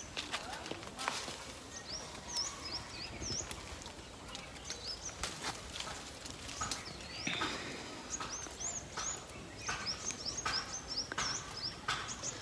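Small birds chirping repeatedly with short, high notes, over brief rustles and snaps of leafy branches as fruit is picked by hand.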